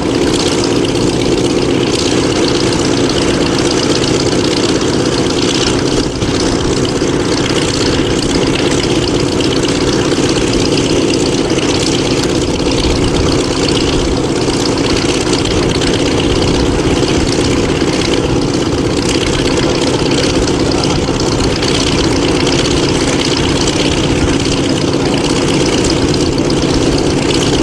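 Douglas A-26C Invader's twin Pratt & Whitney R-2800 radial engines running at a steady low-power idle, with no change in pitch or level.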